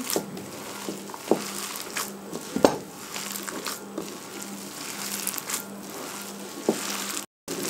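Hands squeezing and kneading a stiff grated-potato kabab mixture in a bowl: soft squishing and rustling with a few sharp clicks, a faint steady hum underneath. The sound drops out briefly near the end.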